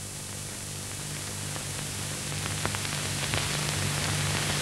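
Steady hiss and low mains-like hum of an old film soundtrack, slowly growing louder, with a few faint clicks.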